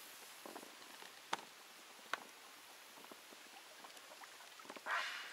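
Faint water sounds around a Hobie i12s inflatable kayak: small drips and ticks against the hull, with two sharp clicks about a second apart and a brief rush of water noise near the end.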